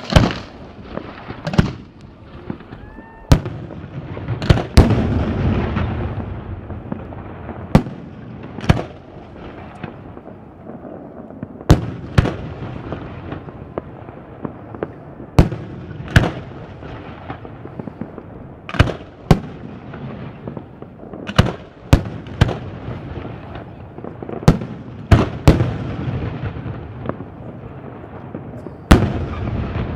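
Fireworks going off: a long series of sharp bangs at irregular intervals, about twenty in all, with rolling rumbling echoes between them.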